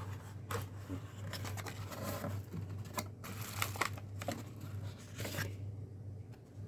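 Crinkling and rustling of packaging being handled and opened, in short irregular bouts that stop about five and a half seconds in, over a steady low hum.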